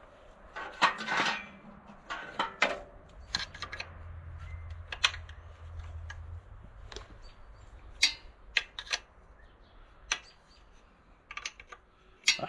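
Metal hand tools clinking and clicking irregularly against each other and the tractor's bolts, with a cluster of sharp clinks about a second in and another near the end.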